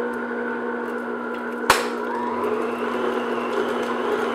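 Stand mixer motor running steadily at medium speed, its paddle attachment beating cream cheese, with one sharp knock under two seconds in.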